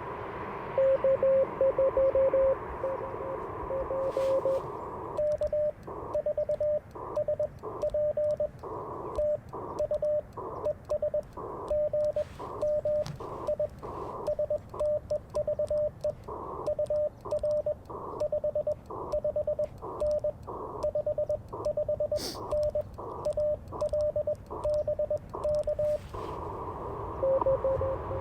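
Morse code from an Icom IC-705 transceiver. For the first five seconds or so a station's Morse beeps through the receiver hiss. Then Morse is sent on the paddle key and the sidetone beeps out dots and dashes, while the receiver hiss drops out and pops back between characters. Near the end the steady hiss returns with another station's beeps.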